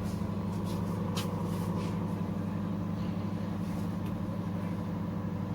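Dawlance microwave oven running on microwave power: a steady electrical hum with the fan and turntable motor going, and a few faint clicks. It runs but does not heat, a sign of a fault in the high-voltage heating circuit.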